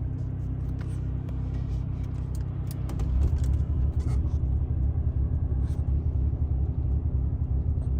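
Low, steady rumble of a car, with a faint steady hum running through it; it grows louder about three seconds in.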